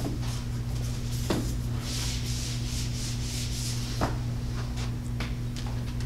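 Marker pen scraping and tapping on a whiteboard as words are written, with a few soft strokes and small ticks.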